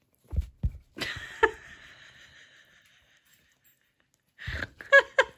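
Pomeranian handling a chew treat on a fabric sofa: a couple of soft thumps, then a scuffing rustle about a second in that fades away. Two short high-pitched vocal sounds come near the end.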